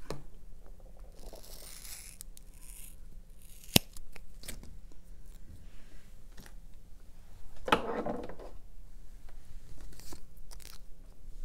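Scissors snipping off a row of rhinestone mesh trim, with small clicks and rustling as the trim and craft pieces are handled. A sharp click about four seconds in and a louder rustle of handling near eight seconds.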